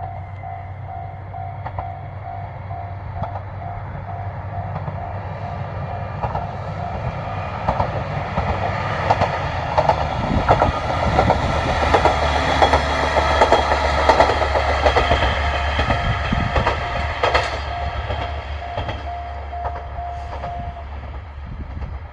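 Japanese level-crossing alarm ringing in a steady pulsing beat, about two a second, while a Nagara River Railway diesel railcar passes over the crossing. Its rumble and the clack of wheels on rail joints swell to a peak in the middle and die away. The crossing alarm cuts off about 21 seconds in.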